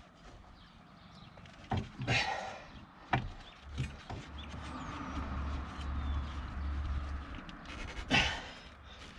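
Metal knocks and scrapes as a new rear coil spring is levered into its seat on a BMW E36's rear suspension with a pry bar: several sharp knocks in the first four seconds and a loud one near the end, with a low rumble through the middle.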